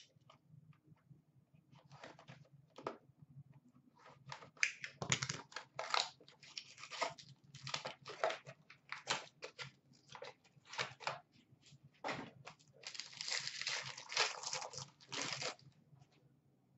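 Tearing and crinkling as a sealed Upper Deck SP Game Used hockey card box and its wrapper are ripped open by hand: irregular rips and rustles, coming thickest near the end.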